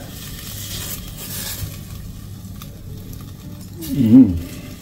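Chicken breast pieces sizzling in a hot air-fryer basket as they are turned over to cook the other side, with a few light clicks.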